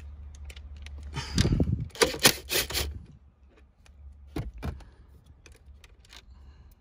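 A run of sharp clicks and clacks about a second in, then a couple of lighter clicks: hands and tools working on the bolts, plastic clips and wiring under a stripped-out car dashboard.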